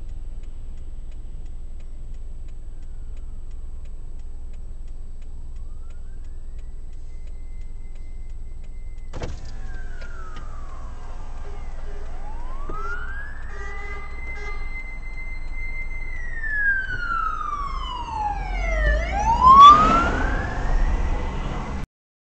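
Fire engine sirens wailing, heard from inside a car over a low steady cabin rumble. About nine seconds in a siren starts, climbing slowly to a high held pitch, falling away and climbing again, while a second siren sweeps up and down faster near the end; the sound cuts off abruptly just before the end.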